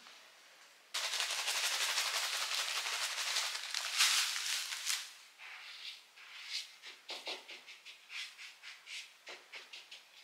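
Dry breadcrumbs rustling and crunching under a hand. A dense, continuous crackle starts about a second in and lasts some four seconds, then gives way to separate crunchy strokes about twice a second as the hand pats and spreads the crumbs on a plate.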